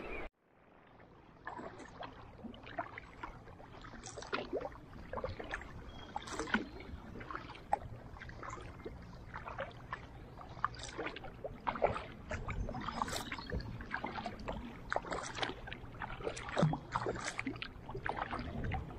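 Kayak paddle strokes on calm river water: the blades of a double-bladed paddle dipping in and lifting out, giving an irregular patter of small splashes and drips. It starts a moment in, after a brief silence.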